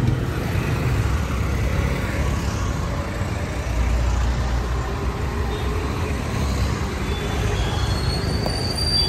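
Street traffic: passing vehicles make a steady rumble, heavier for a moment in the middle, with a high thin squeal setting in near the end.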